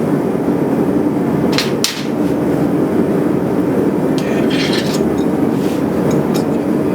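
Steady roar of a lit forge, with a few sharp metal clinks of a wrench and vise working a hot railroad spike, about two seconds in and again around four to five seconds in.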